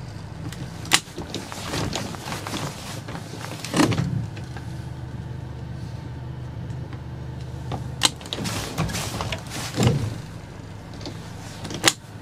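Motorboat engine running at low speed during a docking manoeuvre, a steady low hum, with sharp clicks about a second in, about eight seconds in and near the end, and louder swells of noise in between.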